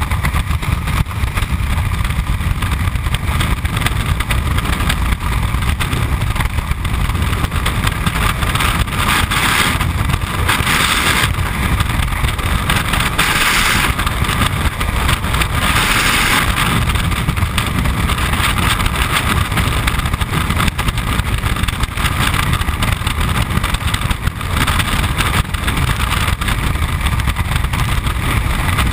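Freefall wind rushing and buffeting over a camera microphone, a loud steady rumble with a few hissier surges around the middle.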